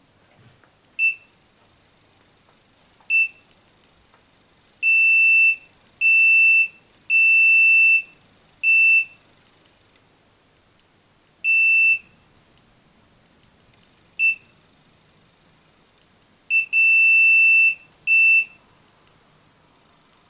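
Multimeter continuity beeper sounding in uneven beeps of one high tone, some short and some held for about a second, as the mouse's left button switch is clicked. Faint clicks in between bring no beep: the switch makes contact only some of the time, the sign of a faulty, intermittent button switch.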